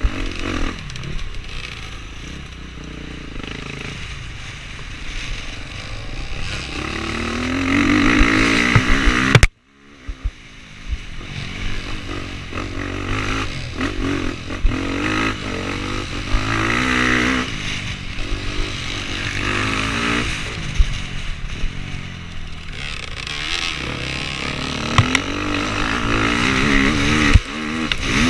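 Off-road motorcycle engine revving up and down as the bike is ridden hard over rough ground, with clatter and knocks from the bumps. About a third of the way through the sound cuts out abruptly, then the engine builds back up.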